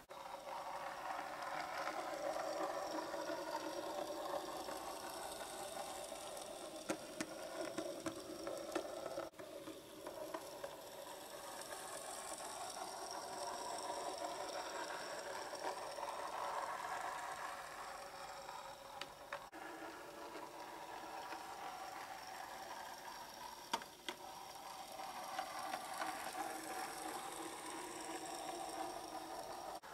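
Brand-new Bachmann 009 Mainline Hunslet model locomotive running light engine on DC while being run in: a steady whirr from its small electric motor and gears, with a few sharp clicks. The level swells and eases a little over time.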